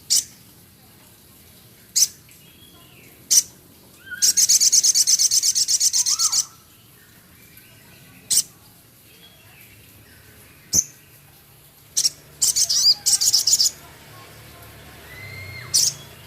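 Male sogon bird calling: sharp, high single notes every couple of seconds and two harsh, rapid rattling trills (crecet), one about two seconds long starting about four seconds in, a shorter one past twelve seconds. Soft lower whistled notes come in between.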